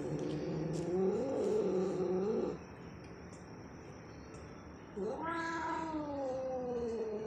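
Domestic cat yowling: a long, wavering, drawn-out call that ends about two and a half seconds in, then after a pause a second long call, starting about five seconds in, that slides down in pitch. It is the cat's yowling after eating.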